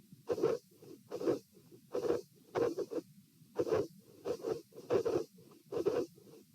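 A human heartbeat heard through a stethoscope: a steady lub-dub rhythm of paired beats, a little over one beat a second. The heart has a dilated aortic root, and the beats carry an aortic vascular click and an extra sound that the recorder takes for a possible cyclic S3.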